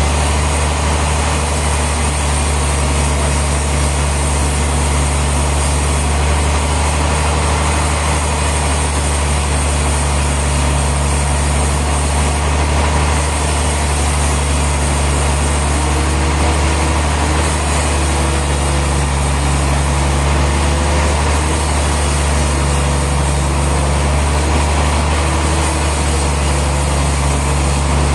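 Heavy engine of sawmill machinery running steadily with a constant low hum. A faint on-and-off higher tone joins in past the halfway point.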